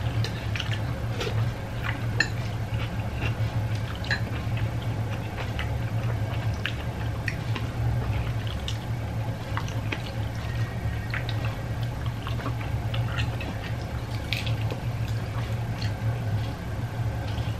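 Close-up eating sounds: wet chewing and lip smacks with scattered small clicks as mussels are picked from their shells by hand, over a steady low hum.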